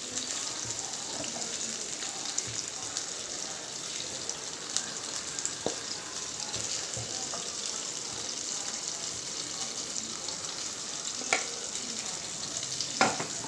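Hot oil sizzling steadily in a kadai around masala-marinated mutton pieces as they are lifted out after frying. A few sharp taps near the end.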